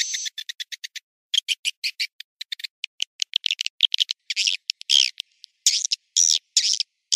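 Edible-nest swiftlet lure-call recording: a fast run of short, high chirps and twitters, a brief break about a second in, then more varied chirps and a few longer trills. This is a 'suara panggil' calling track, played from a swiftlet house's speakers to draw wild swiftlets in.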